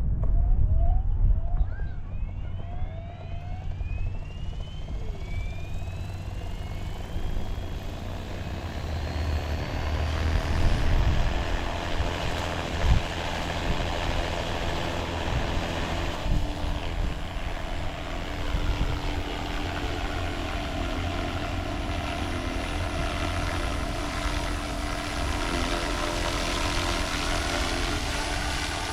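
Small helicopter flying low: a steady rotor and engine drone, its pitch rising over the first several seconds and then holding steady.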